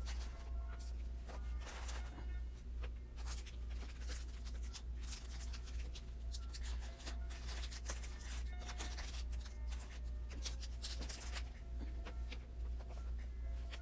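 Rustling and crinkling of paper and plastic wrappers as things are handled, dense and irregular through the middle, with quiet lo-fi music underneath.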